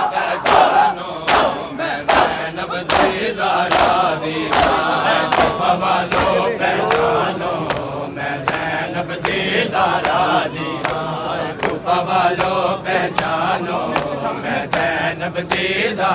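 Crowd of men chanting together during matam, with the sharp rhythmic slaps of hands beating bare chests in time, about two a second, growing sparser in the second half.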